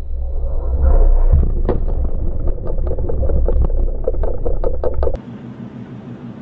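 A missile explosion on board a warship, close to the microphone: a deep blast about a second in, then crackling and many sharp ticks of burning and falling debris over a heavy rumble. About five seconds in it cuts off abruptly to a quieter steady low hum.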